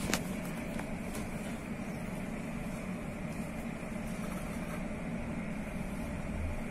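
Steady hum inside the passenger saloon of a Class 345 Aventra electric train.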